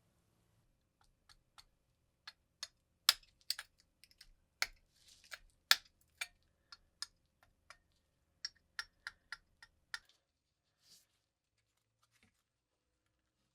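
An irregular string of sharp clicks and taps, as of small hard objects being handled and set down, a few much louder than the rest; they stop about ten seconds in.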